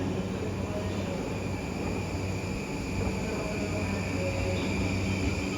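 Steady railway-station background: a constant low hum with a faint high steady tone, and no wheel-on-rail-joint clatter.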